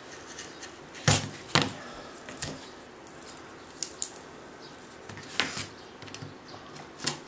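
Sharp snaps and clicks of a cutting tool working into a 6-fiber multimode fiber-optic cable: two loud snaps about a second in, a few fainter clicks after, and more snaps near the end.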